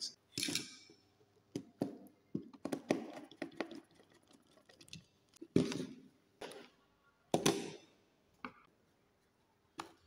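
Scattered light clicks, knocks and rustles as a plastic miniature circuit breaker and wall switch plates are handled with gloved hands and set down on a wooden workbench.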